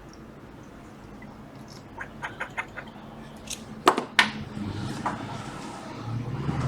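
A quick run of about five light clicks, then two loud sharp clicks about a third of a second apart, from small tools and parts being handled on a repair bench.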